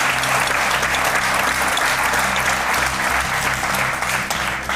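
Studio audience applauding steadily over background music with steady low notes; the applause dies away right at the end.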